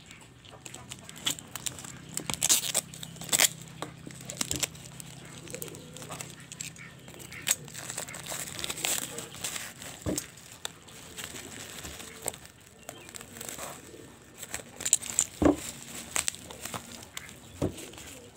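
Black plastic parcel wrapping being slit with a box cutter and pulled off a cardboard box: irregular crinkling and tearing of plastic with sharp crackles, loudest a couple of seconds in and again near the end.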